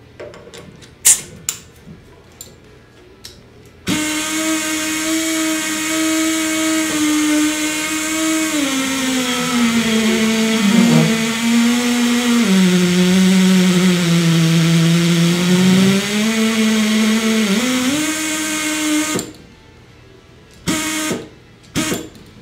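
Air motor of a Tri Tool 208B pneumatic pipe beveling machine starting about four seconds in and running with a steady whine, its pitch sagging lower in the middle as the bevel bit cuts into stainless pipe under load, then rising again and cutting off suddenly a few seconds before the end. A few light metallic clicks of tooling being handled come before and after it.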